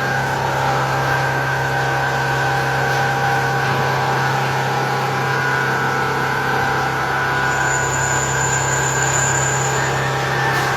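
Machinery running steadily: a constant hum with several steady whining tones over a noisy background. A high-pitched whine joins about seven and a half seconds in and stops shortly before the end.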